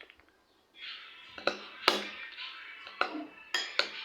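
A spoon clinking against a bowl as a thick mayonnaise-and-cheese sauce is stirred, with several sharp clinks in the second half. Background music comes in about a second in.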